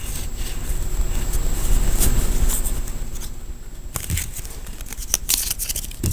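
Pokémon TCG booster pack being opened by hand: its foil wrapper rustles and crinkles, then a few short sharp clicks and taps come in the second half.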